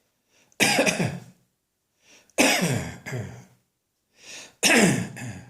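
A person's dry, irritated cough: three coughing bouts about two seconds apart, each starting sharply and trailing off with a falling, voiced tail, with a short breath drawn in before each.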